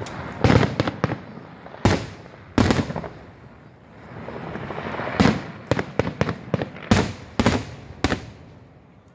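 Aerial fireworks bursting: a quick string of sharp bangs, some in tight clusters, with crackling and rumble between them.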